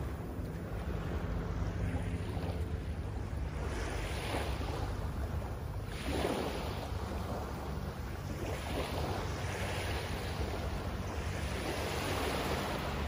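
Small waves washing up onto a sandy beach in several surges, the strongest about six seconds in, with wind rumbling on the microphone.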